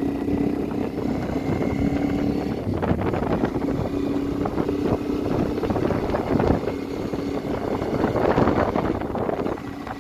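Motorcycle engine running at a steady note while riding on the road, with wind rushing over the microphone.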